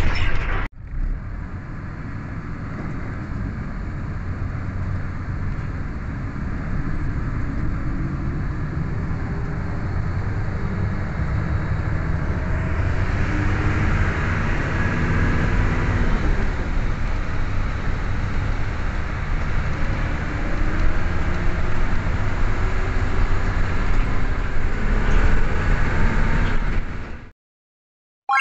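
Engine and road rumble of a coach bus heard from inside the passenger cabin, steady and low, with a brief dropout just under a second in. It cuts off suddenly near the end.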